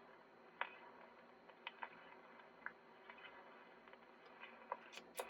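Near silence with faint scattered clicks and ticks over a low steady hum, a few sharper clicks near the end.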